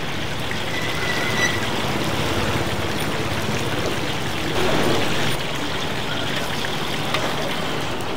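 Steady background noise of a working stall kitchen, with a brief high squeal about a second in and a slightly louder stretch around four and a half seconds.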